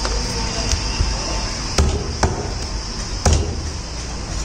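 Meat cleaver chopping a chicken into pieces on a thick wooden chopping block: a light chop, then three heavy chops with a dull thud, the last the loudest.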